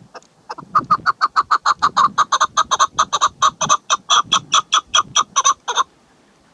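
Chukar partridge calling: a fast, even run of short chuk notes, about six a second, lasting about five seconds and then stopping.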